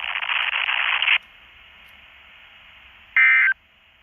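Weather radio static hissing for about a second, then dropping to a faint steady hiss. Near the end comes one short, loud warbling burst of Emergency Alert System digital data tone, the first of the repeated short end-of-message bursts that close an alert.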